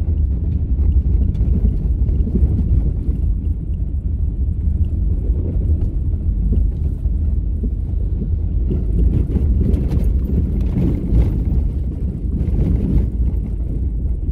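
Steady low rumble of a car driving on a gravel road, with scattered crackling from about nine seconds in.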